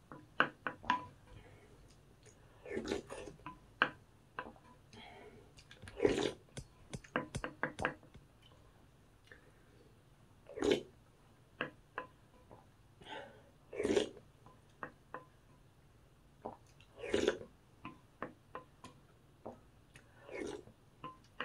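Close-miked mukbang eating sounds: chewing and wet mouth sounds every few seconds, with many small sharp clicks between them.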